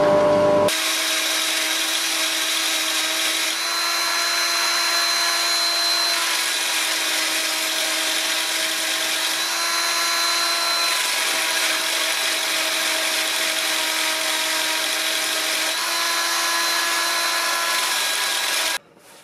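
Ryobi cordless drill spinning a sanding disc against the charred surface of a wooden vase, a steady motor whine whose pitch shifts slightly a few times as the disc is pressed on. It cuts off suddenly near the end.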